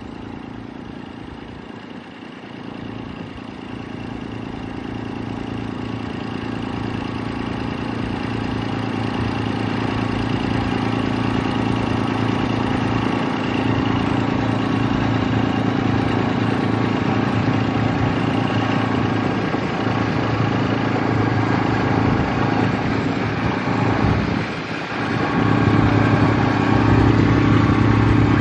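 International 966 tractor engine roaring under load as it pulls a five-bottom moldboard plow through the field, growing steadily louder as it approaches. The sound drops briefly about 24 seconds in, then comes back louder.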